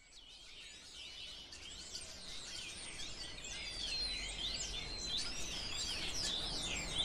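Many birds singing and chirping at once, their short rising and falling calls overlapping in a dense chorus. It fades in from silence over the first few seconds.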